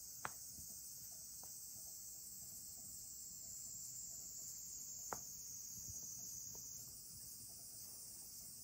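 Faint, steady high-pitched insect chorus, like crickets trilling, with two small sharp clicks, one just after the start and one about five seconds in.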